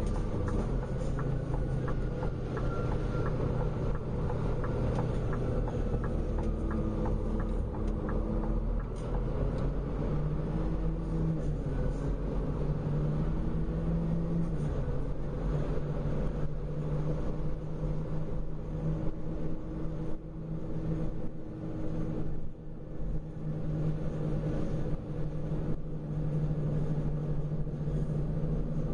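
Car engine running with a steady low rumble of road noise as the car is driven slowly along, its engine note rising and falling.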